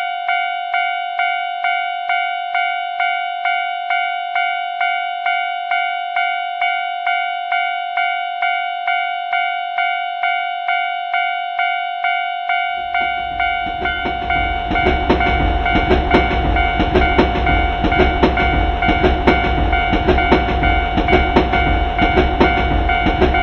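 Japanese railroad crossing warning bell ringing in a steady, even ding-ding. About halfway through, a passing train's low rumble and rhythmic wheel clatter join in under the bell and grow louder.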